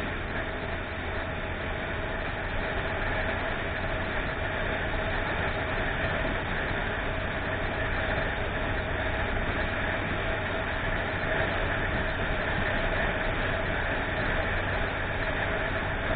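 Steady vehicle running noise, engine and road rumble without a break, muffled by a small camera's microphone.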